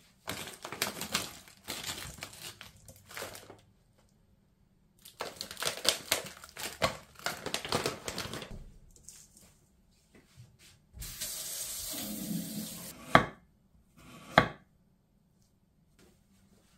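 Strawberries being rinsed in a stainless-steel mesh strainer: two spells of rattling and rustling, then a couple of seconds of running tap water, followed by two sharp knocks.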